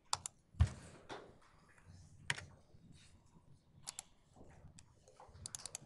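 Scattered computer keyboard keystrokes and mouse clicks, with one louder keystroke carrying a dull thump about half a second in and a quick run of clicks near the end.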